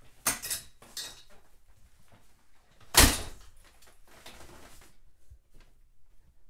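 A person scrambling over and knocking against a home exercise machine: clattering and scuffling, then one loud thump about three seconds in, then more shuffling.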